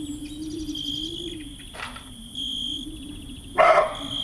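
Insects chirping in short, evenly repeated high pulses over a low steady hum. There is a faint click about two seconds in and a louder short knock near the end.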